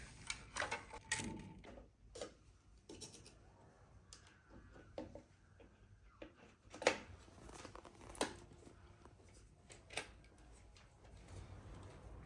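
Faint, scattered clicks and light knocks, about one every second or two, as of small hard objects being handled.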